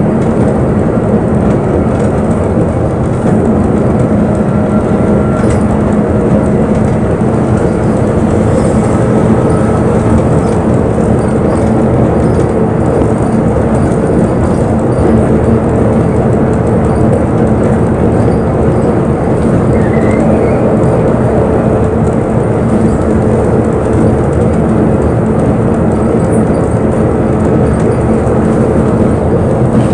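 Inside a moving bus: the steady drone of the engine with road and body rumble, even in level throughout.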